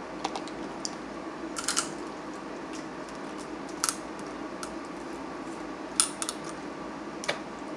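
Steamed blue crab shells being snapped and picked apart by hand: a handful of short, sharp cracks and clicks, the loudest about six seconds in, over a steady low background hum.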